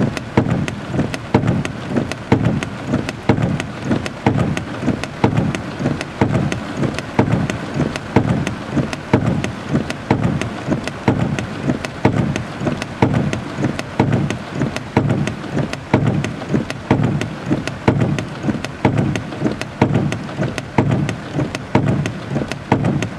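Heavy thunderstorm rain pattering on a vehicle's windshield and roof, heard from inside: dense, irregular drop hits over a rush of rain that swells and fades over and over.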